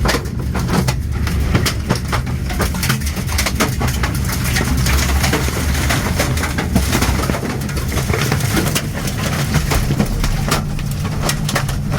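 Tornado passing directly overhead: a steady deep rumble of wind with many sharp knocks and clatters of debris striking the building and its windows.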